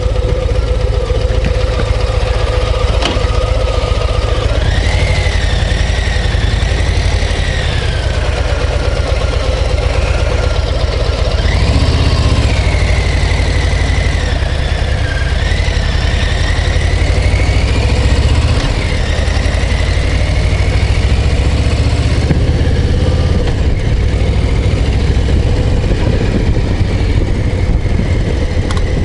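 Harley-Davidson Low Rider ST's V-twin engine running steadily as the motorcycle is ridden, a deep, rapid exhaust pulse. A fainter wavering higher tone rides over it through much of the middle.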